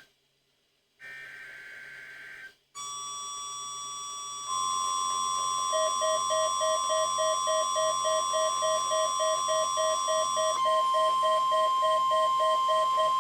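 Emergency Alert System SAME header data burst, a short buzzing chirp about a second in, followed by steady high alert tones from about three seconds in. They step louder, a rapid beep pulsing about three times a second joins around six seconds in, and near the end a single steady tone is left before it cuts off.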